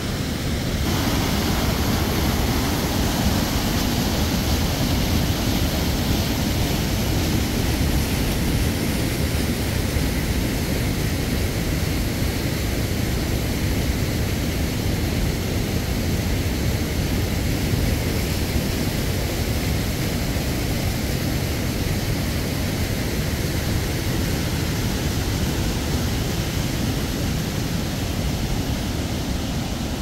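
Loud, steady rushing roar with no breaks, heaviest in the low end, changing character slightly just under a second in.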